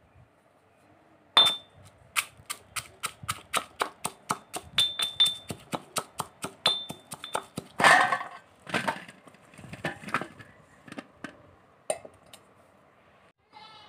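Kitchen utensils clattering: a run of quick, sharp taps, about three a second, some with a bright metallic ring. These are followed by a few louder scraping rustles and scattered clicks.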